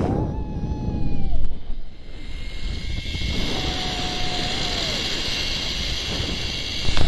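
Zipline trolley running fast along the steel cable, with wind buffeting the microphone and a hiss that grows stronger about halfway through. Over it come two long "woo" yells, each held and then falling away, one at the start and one around the middle.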